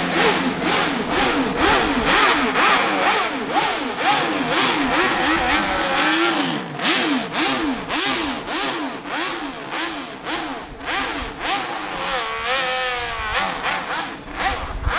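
High-revving racing motorcycle engine blipped repeatedly, its pitch rising and falling about twice a second, with sharp cracks between the revs.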